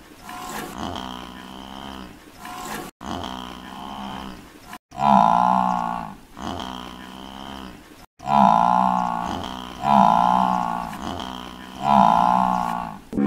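Bovine mooing: a string of low, drawn-out calls about a second long each, one after another, with the later calls louder. The sound cuts out abruptly three times between calls.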